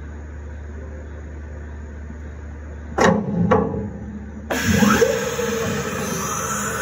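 A CNC mill's machinery hums steadily. About three seconds in there is a sudden clunk with falling motor sweeps as the spindle head starts to move. From about four and a half seconds a loud, steady hiss of compressed air begins, the tool-change air blast that cleans the spindle taper, with the axis motor sounding under it as the head rises.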